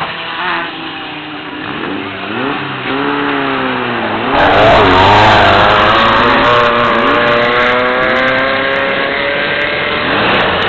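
Off-road race vehicle engines revving, their pitch rising and falling over and over. About four seconds in a loud rush of engine and dirt noise comes up, as a vehicle passes close, and then one engine holds a steady, slowly climbing note as it accelerates away.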